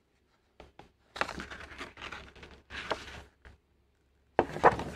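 Paper rustling and crinkling as a folded instruction leaflet is unfolded and handled, in several short bursts, louder near the end.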